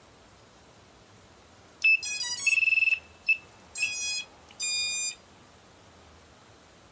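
A sequence of electronic beeps. It starts with a quick run of stepped tones and a held high beep, then a short blip and two longer buzzy beeps.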